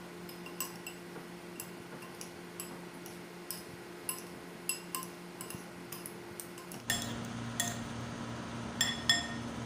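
Metal fork and spoon clinking against a bowl as a salad is tossed: short ringing clinks, a bit over one a second, irregular. A steady low hum runs behind and gets louder about seven seconds in.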